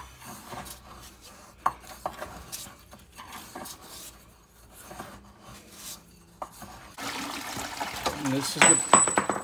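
Metal tool scraping and clinking as scale sediment is dug out of an electric water heater's heating-element opening. About seven seconds in, water starts rushing out of the opening into a plastic bucket, flushing the sediment out.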